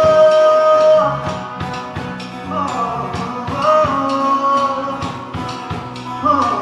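Live band performing a Hindi rock-pop song: long held sung or melodic notes over full accompaniment with a steady drum beat.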